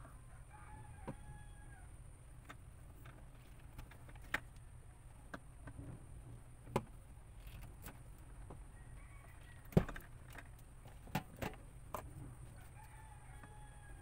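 About six sharp clicks and snaps of pliers and wire being worked at a plastic electrical box, the loudest a little under ten seconds in. A rooster crows faintly three times.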